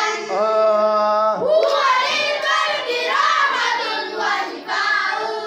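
Voices singing an Arabic devotional nasheed in long, drawn-out notes with slides between pitches, carrying on the refrain that asks God's blessings on the Prophet.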